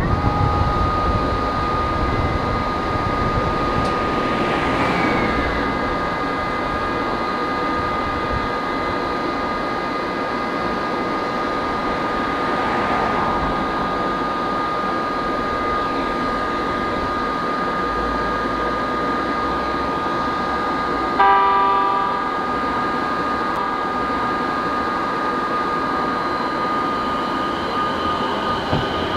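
A JR East 209-series electric train standing with a steady high-pitched electrical whine. About two-thirds of the way through it gives one short horn blast. Near the end the whine slides down in pitch.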